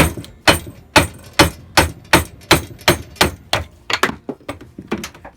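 Hammer blows knocking a wrongly fitted drive pulley back off the lathe's headstock shaft: a steady run of sharp knocks, about three a second, getting quicker and lighter toward the end.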